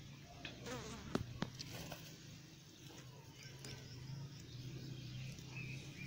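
Faint, steady low buzzing of a flying insect, with two sharp clicks just over a second in. The francolin does not call.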